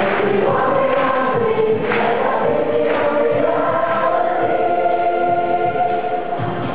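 A choir singing held notes, changing pitch every second or so.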